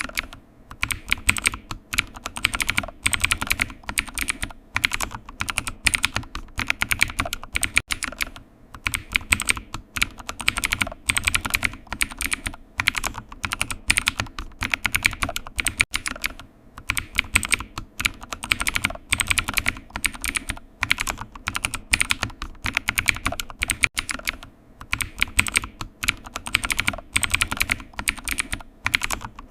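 Computer keyboard being typed on: rapid, continuous key clicks in runs of a few seconds, broken by brief pauses.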